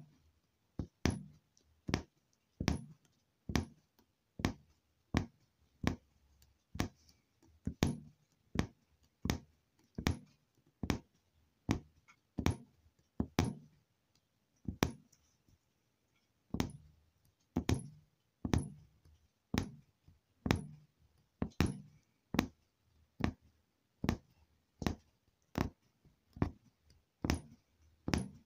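Punch needle pushed in and out of fabric stretched taut in an embroidery hoop, each stitch a soft tap, a little more than one a second in a steady rhythm.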